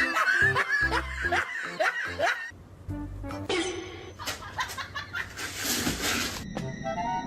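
Background music with a regular bass beat, with what sounds like short bursts of laughter in the first couple of seconds, then a stretch of hissy noise.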